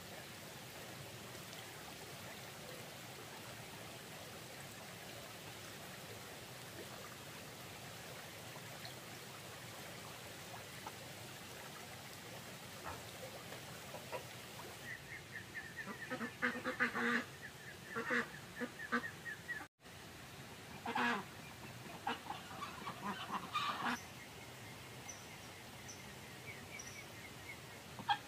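A steady faint hiss, then from about halfway several bouts of loud honking calls from domestic waterfowl.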